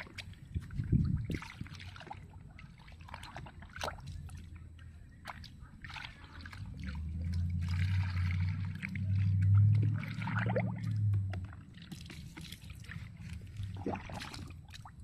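A hand stirring and sloshing soapy water in a bucket, with repeated small splashes and a heavier low rumble from about halfway through.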